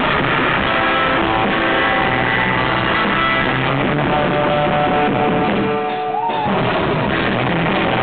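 Live surf rock instrumental: a loud Fender Stratocaster electric guitar playing with bass and drums. About six seconds in, the drums and bass drop out for a moment while the guitar slides one note upward, then the band comes back in.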